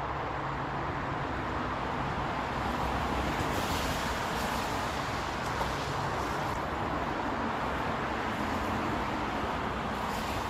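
Steady road traffic noise, with passing cars swelling about four seconds in and again near the end.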